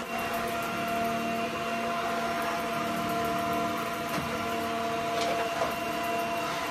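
Robot vacuum cleaner running close by: a steady motor hum with a constant whine over it.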